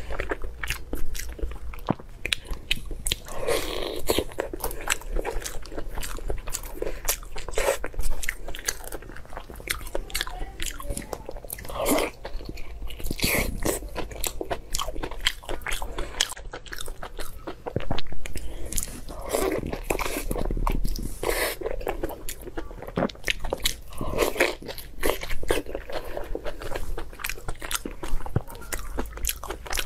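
Close-miked eating of a large meat-stuffed sausage: biting into it and chewing with mouth open, giving a steady run of sharp clicks and wet smacking sounds.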